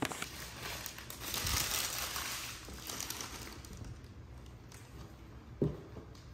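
Rustling, crinkling handling noise that fades after about four seconds, with one short low thump about five and a half seconds in.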